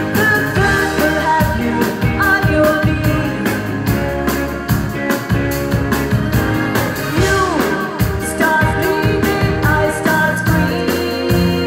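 Live pop song performance: a woman singing lead into a handheld microphone over a band mix with a steady drum beat.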